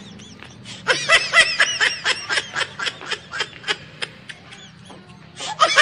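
Edited-in laughing sound effect: a quick run of high-pitched laughs, about four a second, that tails off over about three seconds, with another burst starting near the end.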